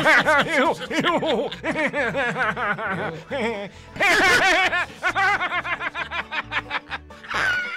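A long run of rapid, cackling laughter, one short 'ha' after another in two stretches with a brief pause just before the middle, over background music.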